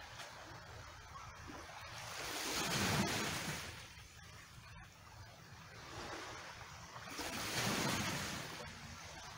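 Small waves washing in and sloshing among the rocks and a rock pool on a stony shore, a rush of water that swells twice, about three seconds in and again near the end.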